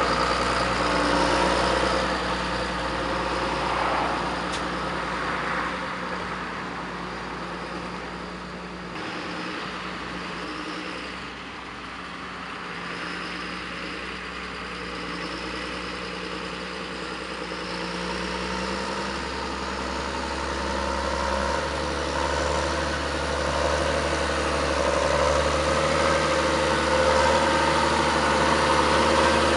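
John Deere 7820 tractor's six-cylinder diesel engine running steadily. It fades a little toward the middle and grows louder again toward the end, with a change in the engine note about two-thirds through.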